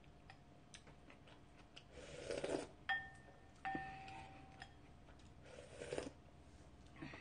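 Slurping kimchi stew broth from a wooden spoon, twice. Between the slurps the wooden spoon knocks twice against a ceramic bowl, which rings briefly each time.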